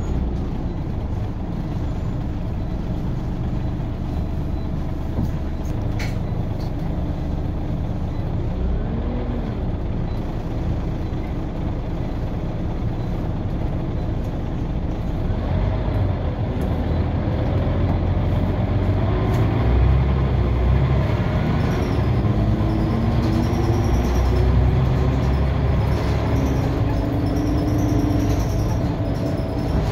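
Scania OmniCity single-decker bus heard from inside its cabin: the five-cylinder diesel engine and drivetrain run steadily as the bus drives, with rising whines as it pulls away and accelerates through the gears in the second half.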